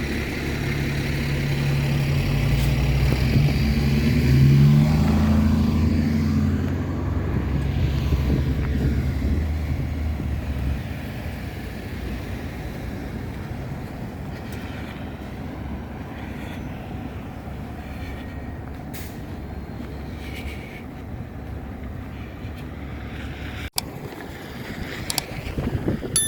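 A heavy vehicle's engine running close by and passing, loudest about four to five seconds in and fading out by about eleven seconds, followed by steady, quieter street traffic.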